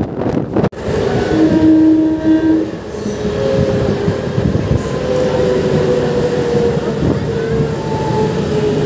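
MEMU electric passenger train running along the track, heard from on board: a steady rumble with several held tones that come and go from about a second in. Wind buffets the microphone at first, cutting off sharply just before the second mark.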